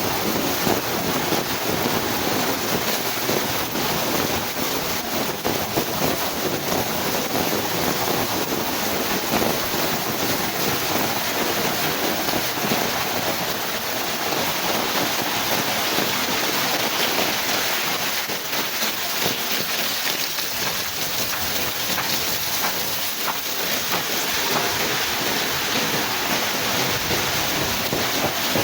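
Heavy rain falling hard and steadily, a dense constant hiss of pouring rain with no let-up.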